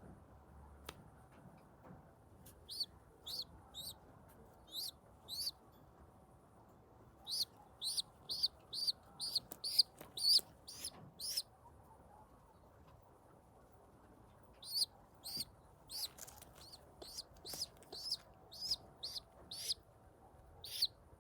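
A pigeon giving short high-pitched squeaks in three runs of about two a second, with pauses of a second or more between runs.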